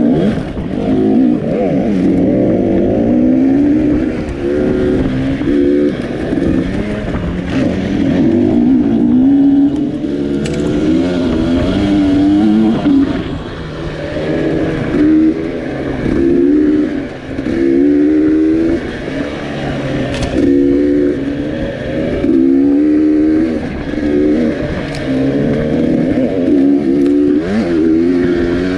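Dirt bike engine running hard on a trail ride, its pitch rising and falling every second or two as the throttle is worked.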